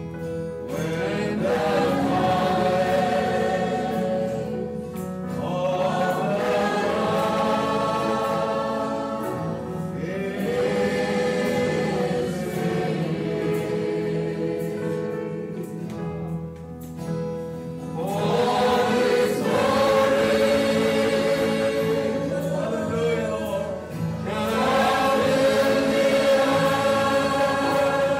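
Choir singing a slow Christian song in phrases several seconds long, over steady held low notes.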